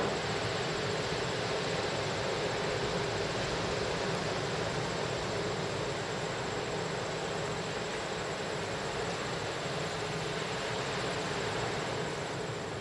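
Steady outdoor background noise, an even hiss with a thin, faint high whine held above it.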